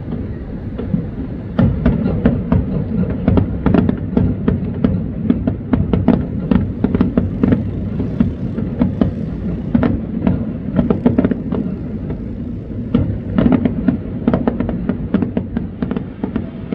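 Aerial fireworks bursting in rapid succession: many sharp bangs and crackles over a continuous low rumble, coming thickest in a few clusters.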